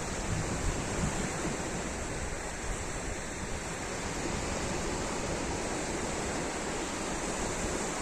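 Sea surf washing steadily onto the beach: an even, continuous rush of waves.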